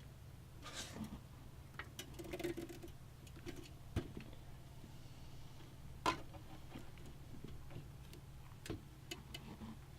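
Scattered light clicks and taps of small plastic parts being handled, as front-panel connector plugs are fitted onto a motherboard's header pins, over a low steady hum.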